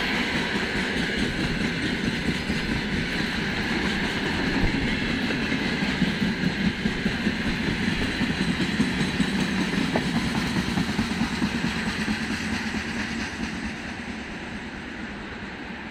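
Open gondola wagons of a freight train rolling past on the rails, a steady rumble of steel wheels with scattered knocks over the rail joints. About two-thirds of the way through, the tail of the train draws away and the sound fades.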